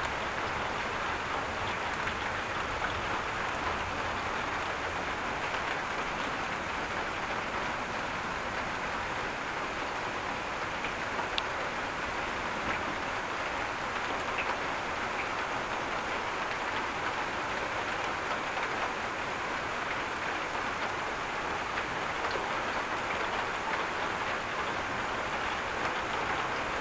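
Heavy rain falling steadily, an even dense hiss with a few faint drop ticks.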